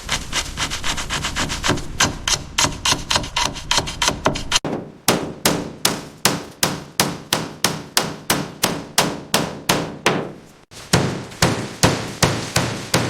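Steady repeated hammer blows, about four a second at first, then about three a second after a short break near five seconds in, and resuming after another break near the end.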